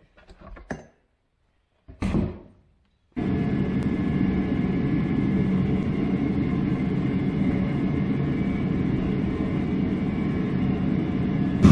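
A few brief knocks from the mold flask being handled, then, starting abruptly about three seconds in, a steady low mechanical roar of foundry machinery that runs on without change.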